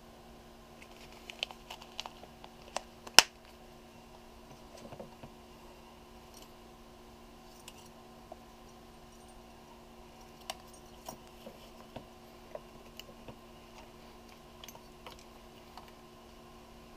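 Handling noise from Polaroid camera accessories in their case: scattered small clicks, taps and rustles of paper, a leather strap and small metal and plastic parts, with one sharp click about three seconds in, the loudest.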